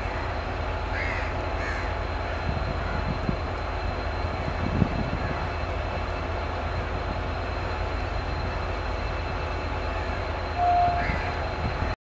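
Indian Railways diesel locomotive running light, its engine giving a steady low rumble as it approaches. Crows caw a few times over it, and a short, steady high tone sounds once near the end.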